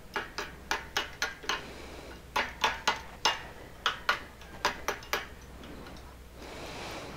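Light metal-on-metal hammer taps on a steel workpiece, about twenty in quick irregular runs, stopping about five seconds in. A soft rushing noise rises near the end.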